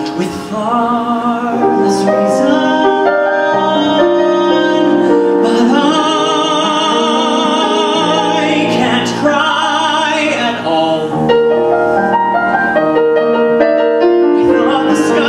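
A man singing a slow musical-theatre ballad with piano accompaniment. In the middle he holds one long note with vibrato.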